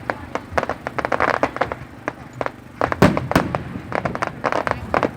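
Fireworks going off: a dense run of crackling pops, with two louder bangs about three seconds in.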